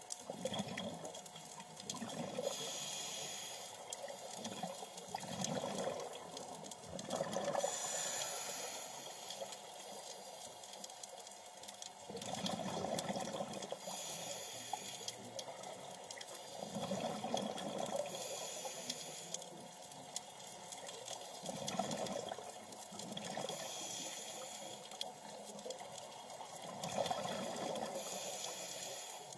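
Scuba diver's regulator breathing underwater: a hissing inhale about every five seconds, six times, each followed by a bubbling rush of exhaled air.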